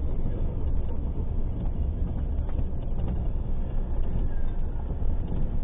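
Steady rumble of a car driving, road and engine noise from inside the cabin.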